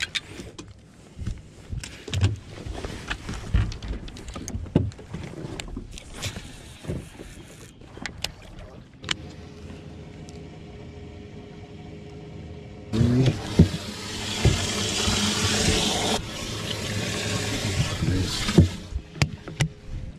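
Knocks, clicks and splashes of a bass being landed and handled in a fishing boat, then about five seconds of loud rushing, splashing water that stops suddenly, followed by a few sharp knocks of a deck hatch lid.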